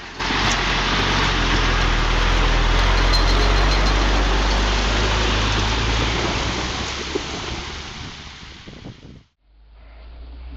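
Heavy truck engine running with a loud, steady rushing noise over it, fading out about nine seconds in; after a sudden break another engine rises again near the end.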